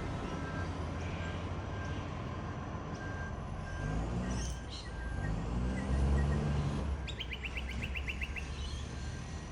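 Side-loader garbage truck's diesel engine, which has an exhaust leak, running and revving up twice, with a reversing beeper sounding about twice a second for the first half. Near the end a quick run of about nine bird chirps.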